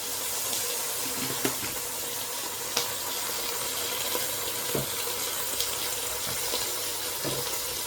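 Water pouring steadily into a cooking pot to cover chicken for boiling, a continuous splashing hiss with a couple of faint clicks.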